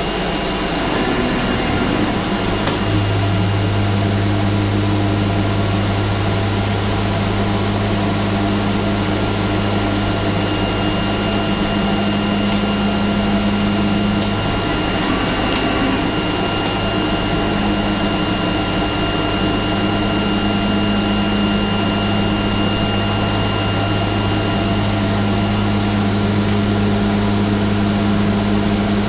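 CNC flatbed cutting machine running: a steady machine noise with a strong low hum and a few faint clicks.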